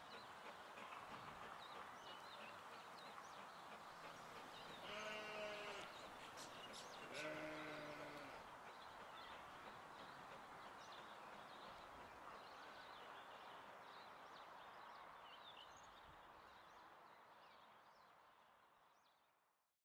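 Sheep bleating twice, each call about a second long and about two seconds apart, over a faint steady outdoor background that fades out at the end.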